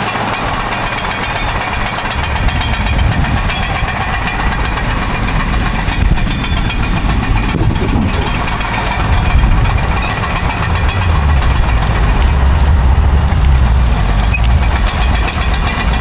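Caterpillar D7 and D8 bulldozers working under heavy load, their diesel engines giving a deep rumble that grows louder about two-thirds of the way through, with the metallic clanking and clatter of steel tracks and chain.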